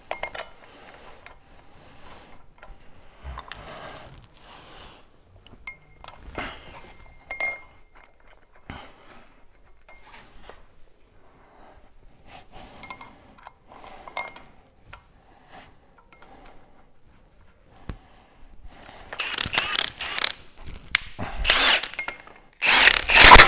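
Small metal clinks and taps of bolts and parts being handled and fitted at a truck's front wheel hub, then near the end a cordless power tool at the hub runs in several short loud bursts of about a second each.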